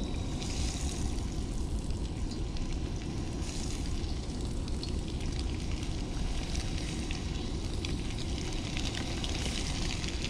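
Flour-coated smallmouth bass fillets frying in hot oil, a steady sizzle full of fine crackles that flares up briefly twice, over a constant low rumble.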